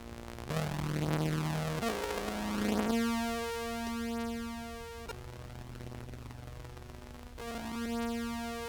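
Contrabass clarinet played through an octave pedal and effects chain, holding a few low notes one after another, each a second or two long. The notes keep a distorted edge that the player says the synth pedal's pitch tracking cannot follow.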